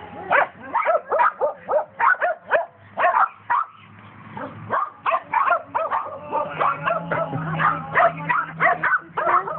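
A litter of Vizsla puppies yipping and whining, a rapid string of short, high cries that overlap one another.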